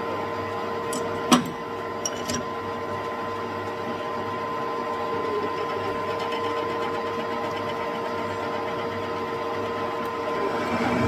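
Metal lathe running steadily with a whirring gear whine, and a sharp metallic knock about a second in. Near the end a large twist drill in the tailstock starts boring into the spinning steel workpiece, and the sound grows louder.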